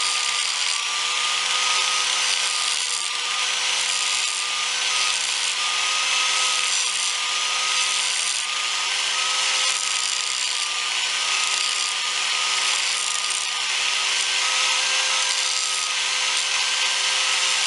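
Electric grinder running steadily with its disc against steel, grinding a groove into the jack stand to prepare it for a root weld pass. A steady motor whine sits under a continuous grinding hiss with no pauses.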